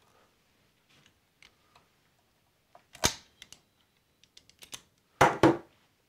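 Hands and tools working on a 3D printer on a table: scattered small clicks, a sharp click about three seconds in, then two loud clacks close together near the end.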